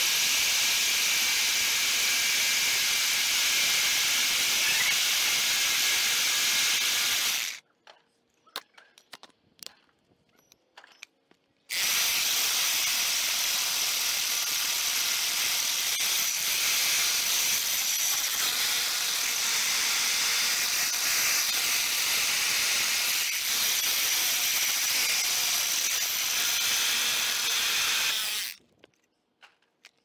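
Hammer drill with a 4-inch core bit boring into a concrete curb, running steadily. It stops about seven and a half seconds in, starts again about four seconds later, and runs until near the end.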